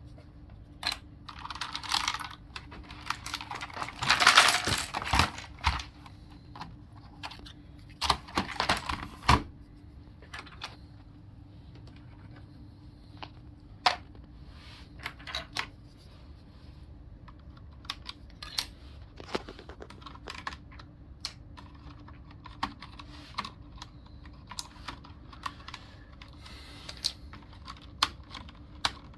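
Mechanical keyboard being handled during cleaning: scattered plastic clicks and taps from the keys and keycaps, with a few louder noisy bursts of about a second each in the first ten seconds.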